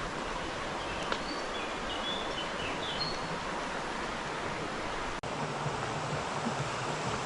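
Steady rushing of a river's flowing water, with a few short bird chirps between about one and three seconds in. The sound drops out for an instant just past five seconds.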